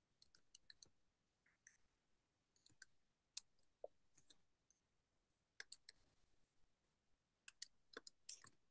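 Faint, scattered small clicks and taps, coming in short clusters of a few at a time, with near silence between them.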